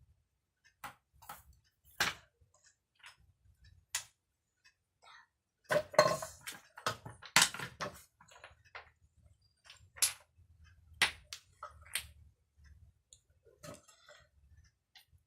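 Wooden toy blocks clacking and knocking together as they are handled and stacked: scattered single knocks, with a busier run of clatter about six to eight seconds in.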